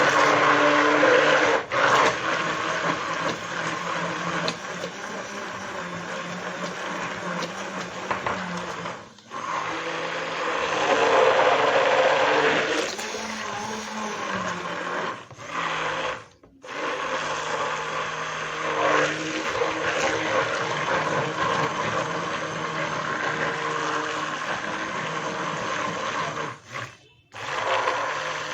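Electric blender motor running steadily as it beats a thickening cocoa, sugar and milk mixture. The motor stops briefly several times and starts again.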